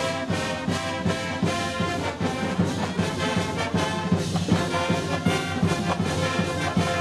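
Instrumental theme music with a steady beat, running under the closing credits.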